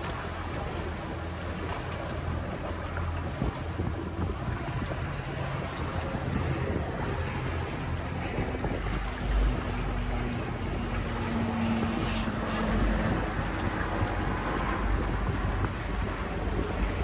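A motorboat under way: the engine's steady low hum under wind on the microphone and water rushing past the hull.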